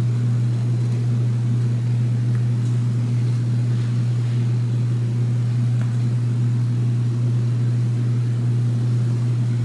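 A steady low hum that holds one unchanging pitch throughout.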